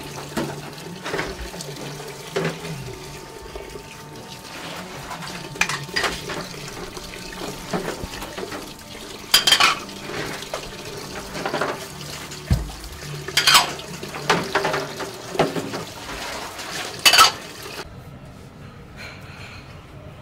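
Crockery and metal pans clattering and clinking in a commercial kitchen sink, with water running; sharp clatters come every second or two, and the clatter stops near the end.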